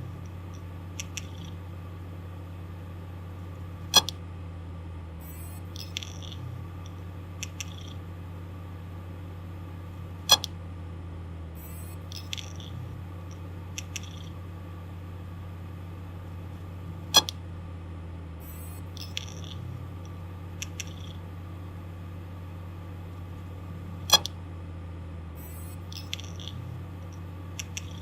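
Failing hard disk drive running with a steady low spindle hum, its heads giving a loud sharp click about every seven seconds, with smaller ticks and brief high chirps in between, the same cycle repeating four times. The repeated clicking is the sign of a mechanical malfunction in the drive.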